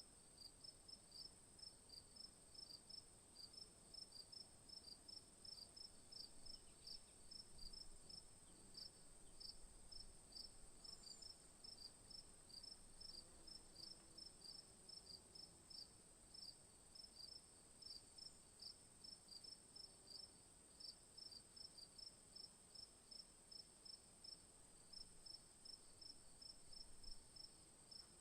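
Faint insects chirping: a steady high-pitched trill with a rapid, regular chirp pulsing over it.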